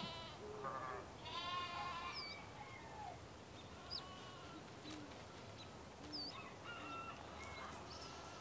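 An animal bleating: wavering calls between about half a second and two seconds in. Short, high chirps follow at intervals.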